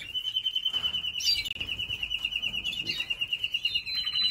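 Canary singing a long, fast trill of evenly repeated high notes, about ten a second, switching to a new, slightly higher trill near the end.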